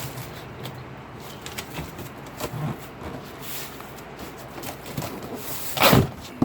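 Cardboard shipping box being worked open by hand: scattered light rustles and knocks, then a loud rasp of cardboard being torn or dragged about six seconds in.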